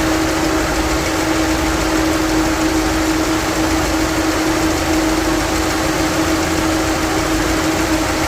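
Car engine idling with a misfire, a steady rumble with a constant whine over it.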